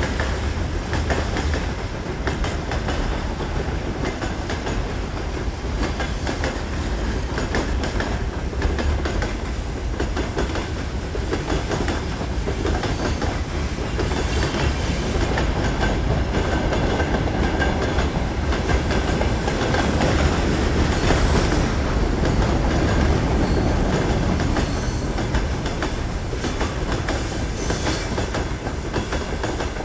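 A train passing at high speed: a steady, loud rumble of its cars with steel wheels clicking over the rail joints.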